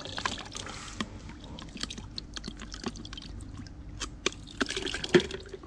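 Water trickling and dripping from a plastic soft-drink bottle into a bucket of water, with irregular crackling clicks as the plastic bottle is squeezed and flexed, the sharpest about five seconds in.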